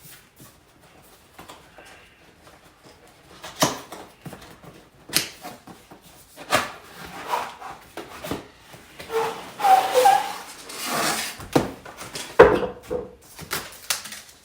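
A cardboard box being opened and its packaging unpacked: irregular rustling, scraping and knocks of cardboard and packing material, busier in the second half, with a few short squeaks.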